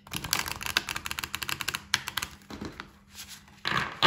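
A deck of oracle cards being riffle-shuffled: a rapid run of card-edge clicks for about two seconds, then a second, shorter and louder flurry near the end.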